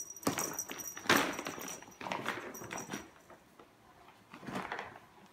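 Rustling and scuffing of a Persian cat pouncing and scrabbling in a bag while playing, in several short bursts, the loudest about a second in.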